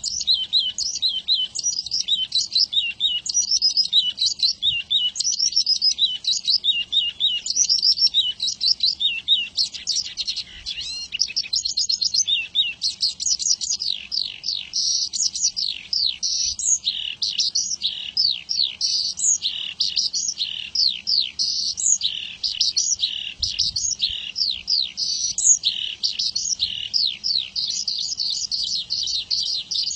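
Horsfield's bush lark (branjangan) singing a long, unbroken song of rapid high chirps and trills, with hardly a pause.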